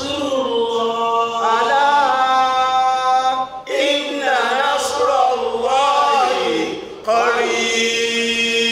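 A man's voice chanting melodically in three drawn-out phrases, with long held notes.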